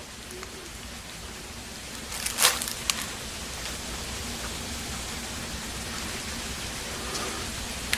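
Steady background hiss with one short knock about two and a half seconds in.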